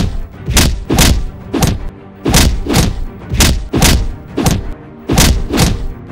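Heavy stomping footstep sound effects, loud thuds about two a second that often come in pairs, over background music.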